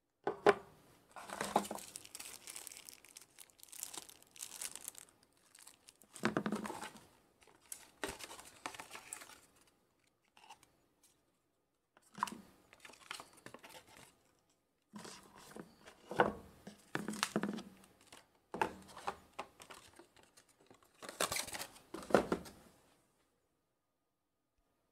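Packaging being handled: plastic wrap, paper leaflets and a thin cardboard box crinkling and rustling in irregular bursts, with small knocks on the table. It stops near the end.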